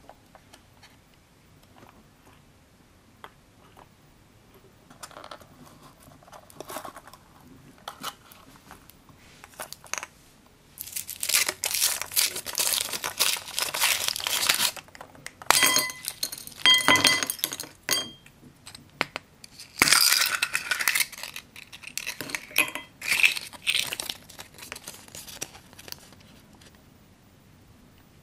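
Thin foil wrapper crinkling and tearing as it is peeled off a chocolate egg, loudest in the middle stretch, with a few light clinks among it. Before that, quieter rustling of a small cardboard box being handled and opened.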